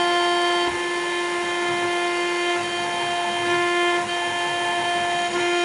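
CNC router spindle running with a steady high-pitched whine while its bit carves a rotating acrylic cylinder, with cutting noise underneath.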